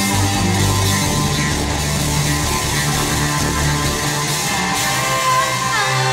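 Live prog-rock music: electric guitar and synthesizer keyboards playing an instrumental passage over held low bass notes.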